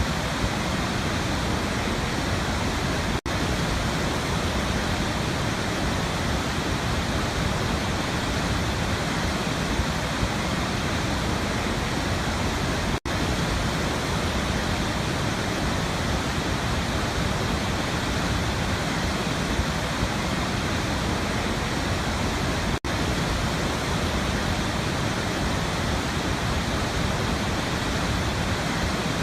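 Waterfall: a steady, dense rush of falling water, broken by three momentary dropouts.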